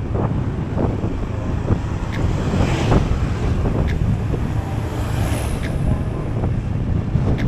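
Wind buffeting the microphone of a riding Yamaha NMAX scooter, over the steady noise of the scooter and road, with a few sharp knocks along the way.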